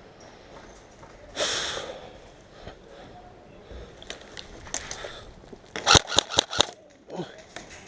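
Airsoft electric rifle firing a short burst: about six sharp shots in quick succession, with a single shot near the end. A short hiss sounds about a second and a half in.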